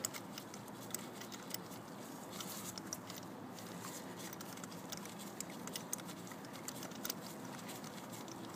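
Faint, irregular small clicks and light scraping from a ratchet, extension and spark plug socket being turned by hand to unscrew an already-loosened spark plug from its well.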